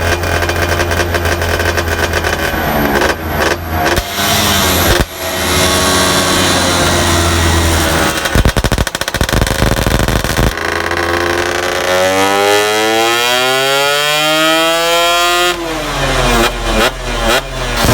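Yamaha F1ZR two-stroke engine, built up to 125cc with a PWK 28 carburettor, running with a crackly, popping idle and quick throttle blips. About twelve seconds in it revs up and back down in one smooth sweep, then blips again. The fresh engine is being run in.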